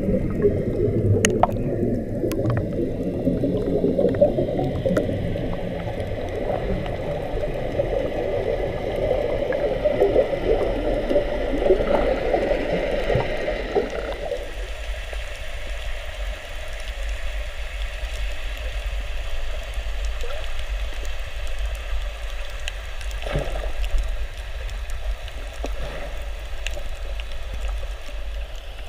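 Underwater sound picked up inside a waterproof camera housing: a dense bubbling and churning of air bubbles for about the first half, which drops off suddenly to a muffled underwater hiss over a low rumble, with a few faint clicks.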